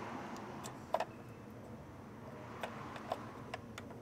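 Scattered light plastic clicks and taps from unplugging the door wiring harness connectors of a 2006 Lexus RX330, the loudest about a second in, over a steady low background hiss.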